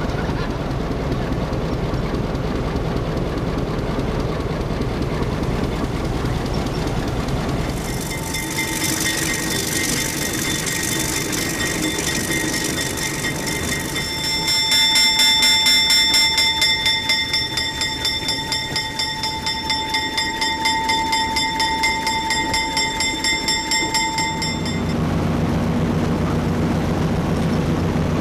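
Rail journey aboard the DT12002 diesel locomotive: a steady low running rumble, then from about halfway a loud, high, pulsing wheel squeal that lasts some ten seconds as the train rounds a curve. The squeal stops suddenly and gives way to a low, even engine hum.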